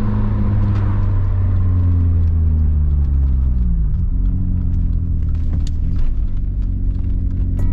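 Audi S4 B8.5's supercharged 3.0-litre V6 running while driving, its engine note stepping down in pitch a few times as the revs change.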